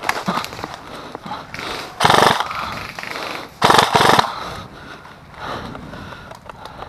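Airsoft guns firing short full-auto bursts, each a rapid string of shots. Two loud bursts of about half a second come about two and three-and-a-half seconds in, with fainter bursts between.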